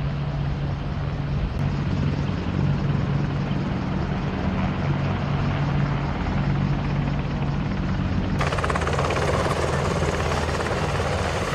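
Military helicopters running, a steady loud drone with a strong low hum from engines and rotors. About eight seconds in, the sound changes abruptly and becomes brighter and hissier.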